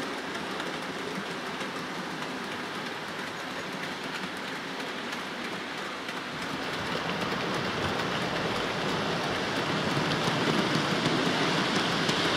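OO-gauge model freight train of hopper wagons rolling along the layout's track: a steady rolling rush of small wheels on rail with faint rapid clicking, growing louder in the second half as the wagons pass close.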